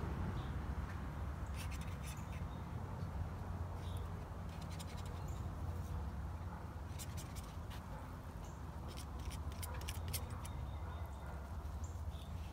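Palette knife scraping and tapping oil paint onto a painting board: clusters of faint, sharp, high ticks and scratches over a steady low rumble.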